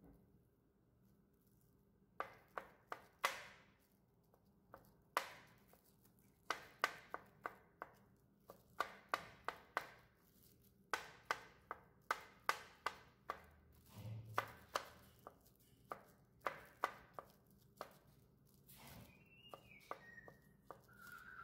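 A kitchen knife chopping hard-boiled eggs on a plastic cutting board covered with plastic wrap: quick, irregular clusters of sharp taps as the blade hits the board. Near the end a bird chirps a few short notes.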